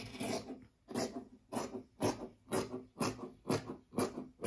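Scissors snipping through fabric, trimming its edge in a steady run of cuts, about two a second.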